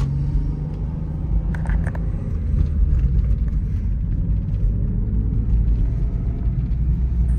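Lexus IS300 on the move: its 2JZ-GE straight-six engine running under a steady low road rumble, with a couple of faint light ticks about a second and a half in.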